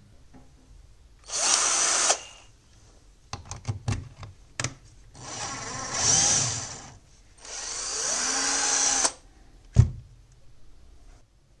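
Power drill running in three short bursts of a second or two each, with clicks and taps between them and a single sharp knock near the end.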